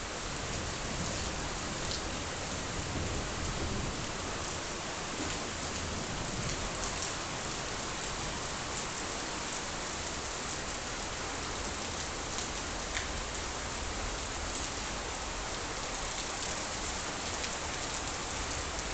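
Light rain falling steadily on a surface, with scattered individual drops ticking through the hiss.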